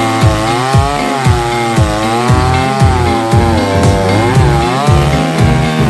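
Chainsaw running while it cuts, its pitch rising and falling with the load, over background music with a steady thumping beat about twice a second.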